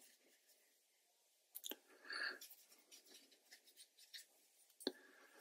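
Near silence, with the faint dabbing and brushing of a large watercolour brush on heavy watercolour paper: a few light taps and a short soft scrub about two seconds in.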